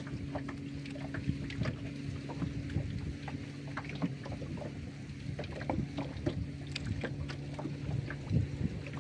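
Small riverboat's engine idling with a steady low hum, while water laps and slaps against the wooden hull and the fishing line is handled in irregular small clicks and splashes.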